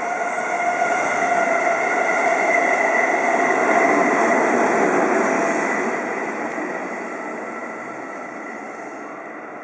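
A three-car JR Central 373 series electric multiple unit passing through the station without stopping. The rumble of its wheels on the rails carries a steady high whine, growing to a peak about four seconds in as the cars go by, then fading as the train draws away.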